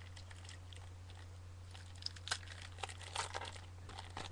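A trading-card pack wrapper being torn open and crinkled: irregular sharp crackles, thickest in the second half, over a steady low hum.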